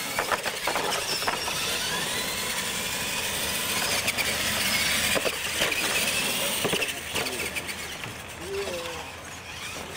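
Radio-controlled monster trucks racing, their electric motors whining and rising and falling in pitch, with several sharp knocks as the trucks hit and land off the ramps.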